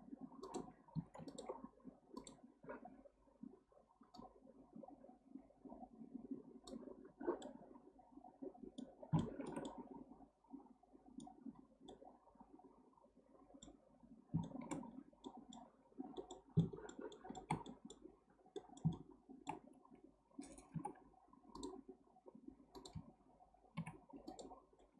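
Faint, irregular computer mouse clicks and scroll-wheel ticks picked up by the microphone, over a soft low rustle.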